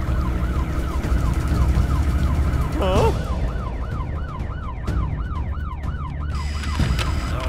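Police siren yelping in quick rising-and-falling sweeps, about two a second, over a steady low rumble. A brief warbling tone cuts in about three seconds in.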